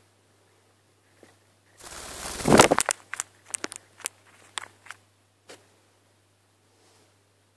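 Handling noise on a phone's microphone: a loud rustle about two seconds in, then a scatter of sharp clicks and knocks over the next few seconds, with a faint low hum underneath.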